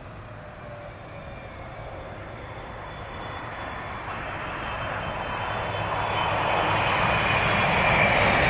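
Jet engines of a Boeing 777 landing, a rushing noise with a faint high whine that grows steadily louder as the aircraft closes in.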